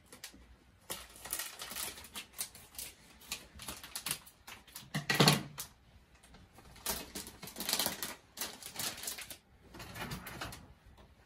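Scissors snipping open a plastic pouch, then the pouch crinkling and rustling in the hands as irregular crackles, with one louder thump about five seconds in.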